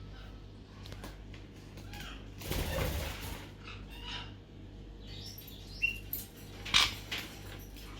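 Black-headed caique chicks moving about: a burst of wing flapping about two and a half seconds in, then a few sharp taps and clicks, with a few short soft chirps.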